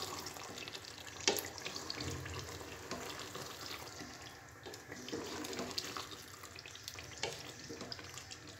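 Wooden spoon stirring a thick potato-and-aubergine curry in a nonstick pot: soft scrapes and knocks against the pot, with a sharper knock about a second in, over the curry's faint sizzling.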